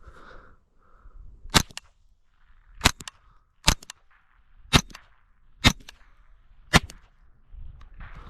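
A .22 LR rifle fired six times in quick succession, roughly a shot a second, each a sharp crack followed by a short faint click or two.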